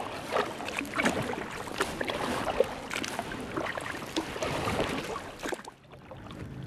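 Water splashing and lapping against a kayak hull as it is paddled across a choppy lake, with many small sharp splashes and knocks. It drops quieter near the end.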